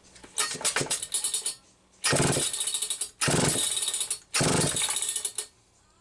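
Homelite 2100S two-stroke chainsaw being pulled over on its recoil starter four times. Each pull is about a second of rapid cranking strokes. The engine does not fire: it is not getting fuel, because the carburettor has not primed.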